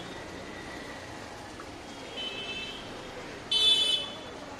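Street traffic with vehicle horns tooting: a faint toot about two seconds in and a loud, short one lasting about half a second near the end.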